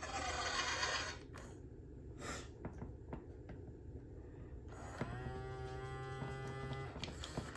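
Mattel D-Rex robot dinosaur toy making a hissing rush, then a few clicks, then a low steady drone that bends up at the start, stops briefly near the end and starts again. Its batteries are weak.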